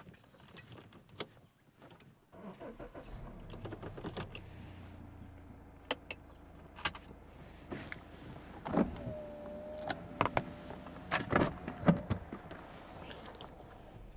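Car being parked: a low engine hum, then a series of clicks and knocks from inside the car, with a steady whine lasting a couple of seconds around the middle.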